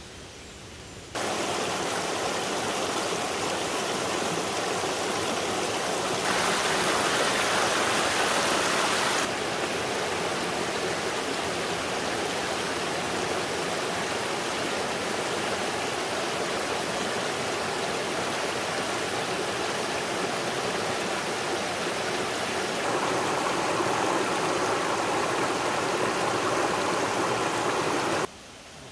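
Shallow rocky stream running over stones: a steady rush of water that starts suddenly about a second in, gets louder for a few seconds and again near the end, then cuts off suddenly.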